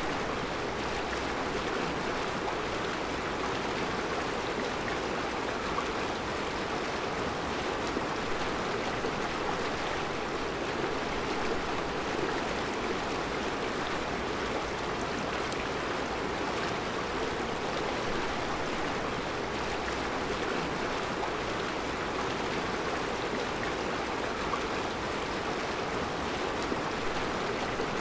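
Mountain river flowing over round rocks in a rocky bed: a steady rushing of water, even and unbroken throughout.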